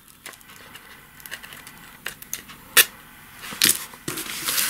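Small craft scissors snipping masking tape on a paper envelope: a few light clicks, one sharper click a little under three seconds in, then paper envelopes rustling as they are handled near the end.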